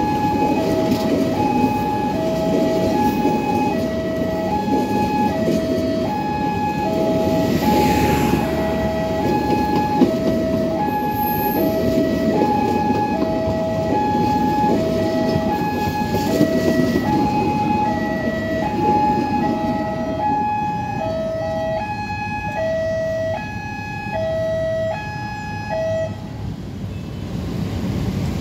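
Level-crossing warning alarm sounding two alternating tones, about one high-low pair a second, while a passenger train's coaches rumble past over the rails. The alarm stops about two seconds before the end as the crossing clears.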